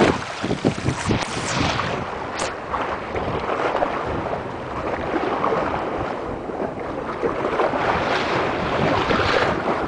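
Wind buffeting the microphone over the wash of small sea waves, with stronger gusts in the first couple of seconds.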